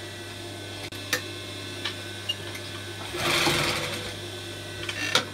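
Industrial sewing machine with its motor humming steadily. About three seconds in it stitches for just over a second, the loudest part. A few light clicks come before and after.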